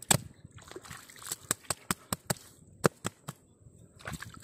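Irregular sharp clicks and knocks, one to three a second, with faint water sloshing between them.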